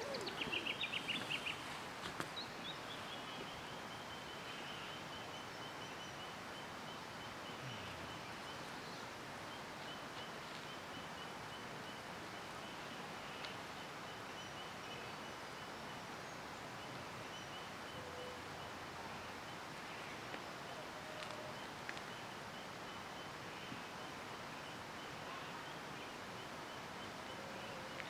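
Outdoor forest ambience: a steady background hiss with birds calling. A quick run of high chirps comes in the first second or so, then a faint high note repeats steadily throughout.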